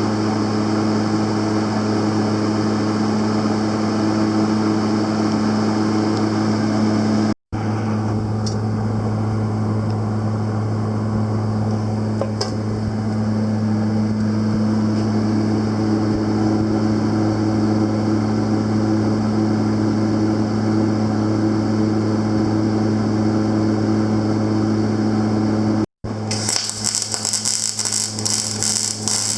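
A steady mechanical hum from a running semi-automatic welding setup, broken by two brief dropouts. Near the end it gives way to the crackling sizzle of a semi-automatic (MIG/CO2) welding arc.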